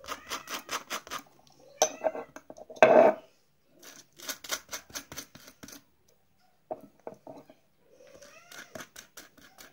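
Rapid light clicks and taps in bursts, with one louder knock about three seconds in.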